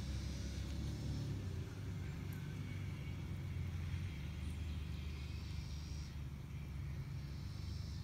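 Steady low background rumble with no distinct sound event.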